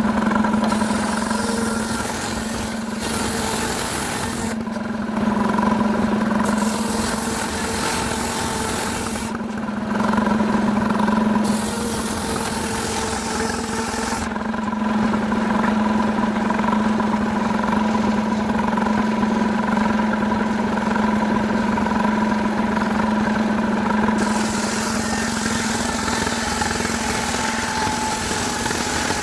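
Stihl chainsaw running at high revs with an even, unchanging pitch, the hiss of the chain biting into jackfruit wood starting and stopping several times as it cuts.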